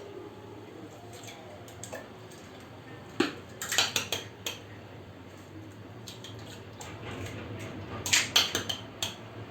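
Short clusters of clinks and taps against a mixing bowl while eggs are added to milk for crêpe batter, once about three seconds in and again near the end.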